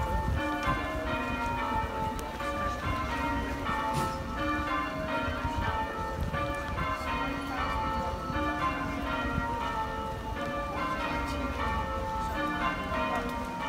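Church bells being change-rung: strokes of bells at different pitches follow one another in a steady, stepped sequence.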